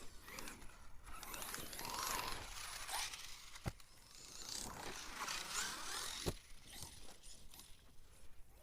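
1/7-scale Arrma Mojave RC monster buggy running on dirt: its electric motor whine rises and falls with the throttle over a hiss of tyres and grit, and there are two sharp knocks a little past three and a half and six seconds in. One of its differentials is stripped, which the owner says gives a crunchy noise throughout the run.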